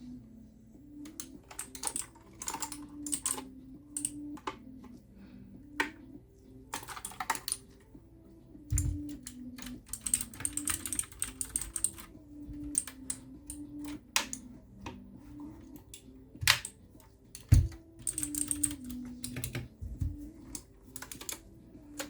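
Typing on a Redragon K630 mechanical keyboard with clicky blue switches: bursts of rapid key clicks with short pauses between them, and a few heavier keystrokes.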